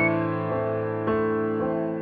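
Background music: a slow keyboard melody, with soft new notes sounding about every half second over held chords.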